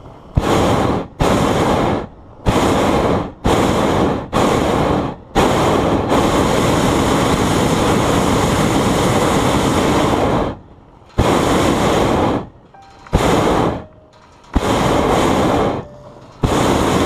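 Hot air balloon's propane burner firing directly overhead in a string of short blasts, each starting and cutting off abruptly, with one long burn of about five seconds in the middle.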